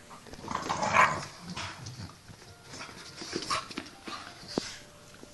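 Staffordshire bull terriers play-fighting: irregular scuffling and short dog noises. The loudest burst comes about a second in, with a few sharp clicks later.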